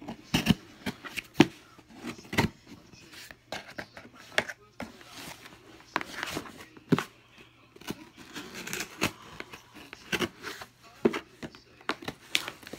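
Close handling noise: irregular taps, knocks and rustles of paper and cardboard items being moved about near the phone's microphone.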